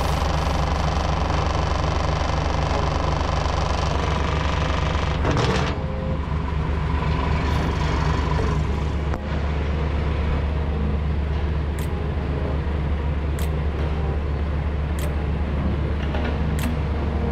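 A heavy truck's engine running on the road, a steady low drone. A higher rushing noise eases off about a third of the way in, and faint sharp ticks come roughly every second and a half in the second half.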